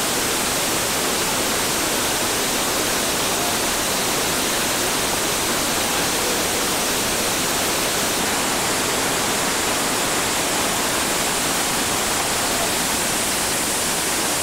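Creek whitewater rushing in a steady, unbroken stream of noise, with no separate splashes or breaks standing out.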